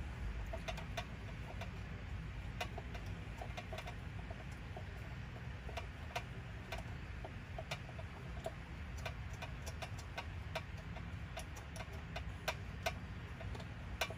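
Irregular small metallic clicks and ticks from hand work on a carburetor and its intake manifold as the manifold is unbolted from the engine, over a low steady hum.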